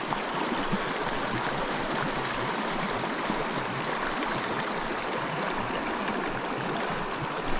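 A small mountain creek rushing and babbling over rocks, a steady wash of running water.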